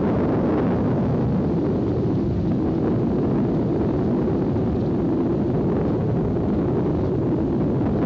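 Steady engine and road noise from inside a moving vehicle, with wind buffeting the microphone.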